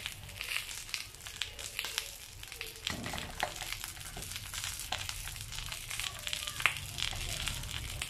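Coconut oil sizzling and crackling under a banana-leaf fish parcel on a hot cast-iron tawa, with many small pops. A wooden spatula presses and shifts the crinkly leaf parcel, from about three seconds in.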